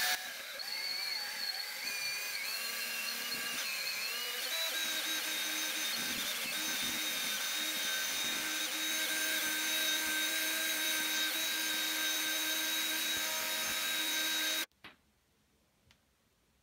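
Cordless drill spinning a homemade quarter-inch threaded-rod paddle mixer through thinset mortar: a steady motor whine that wavers in pitch for the first few seconds, then holds even. It cuts off suddenly near the end.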